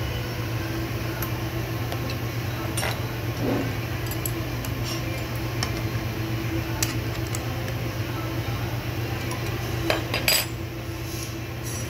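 Scattered metal clicks and clinks of a pin spanner wrench and flange nut as a grinding wheel is fitted and tightened on an air vertical grinder's spindle, the loudest pair near the end. A steady low hum runs underneath.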